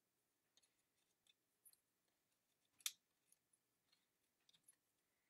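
Faint, scattered small clicks and paper ticks, with one sharper click about three seconds in: fingertips picking the release-paper backing off foam adhesive dimensionals.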